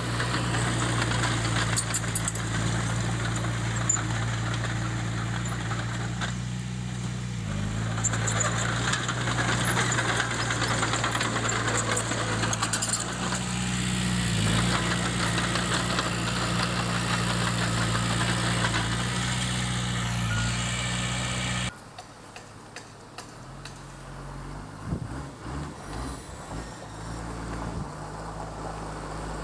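Komatsu D20P bulldozer's diesel engine running steadily under work, its pitch dipping briefly twice as it takes load. About two-thirds of the way through the sound cuts suddenly to a much quieter engine sound.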